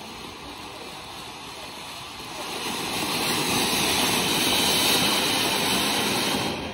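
Batibot Silver Fountain, a ground fountain firework by E. Salonga, spraying sparks with a steady rushing hiss. The hiss grows louder about two to three seconds in as the spray gets taller and denser.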